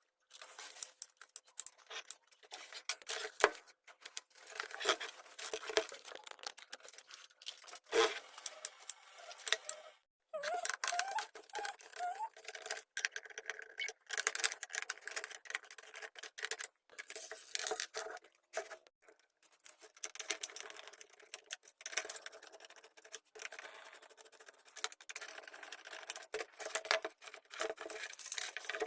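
Irregular clicks, clinks and rattles of small parts and tools being handled while a mixer grinder is worked on, with some crinkling. A faint steady hum runs underneath.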